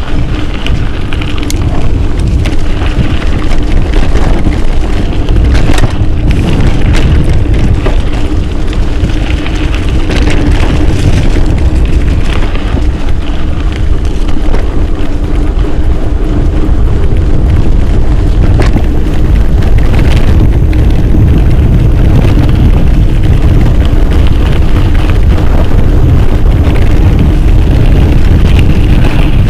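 Wind buffeting an action camera's microphone while a mountain bike rolls over a rough dirt trail, making a loud, steady rumble with the rattle of the bike and occasional sharp knocks as it hits bumps.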